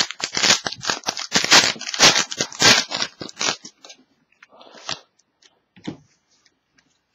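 Trading card pack wrapper crinkling and tearing as it is ripped open by hand, dense for about the first three and a half seconds. After that come a few quieter taps and rustles as the cards are slid out and handled.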